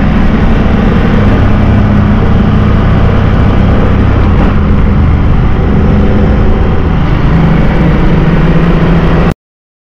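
KTM 890 Duke GP's parallel-twin engine running steadily on the open road, with wind and road noise, as the bike gathers a little speed. The sound cuts off abruptly about nine seconds in.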